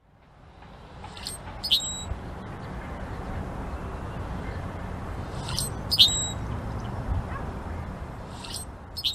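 A bird giving short, sharp high calls in pairs, three pairs a few seconds apart, over a steady low rumble of background noise.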